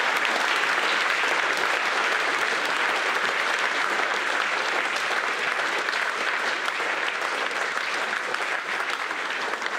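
Audience applauding, a dense steady clapping that slowly tapers off toward the end.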